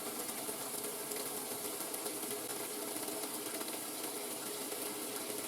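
Water running into a top-load washing machine's tub during the fill: a steady hiss with a faint steady hum underneath.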